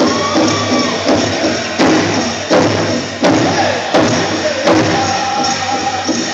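A powwow drum group singing a chicken dance song: a chorus of voices with falling phrases over strikes on the big drum, which hit hard about every 0.7 s from about two seconds in.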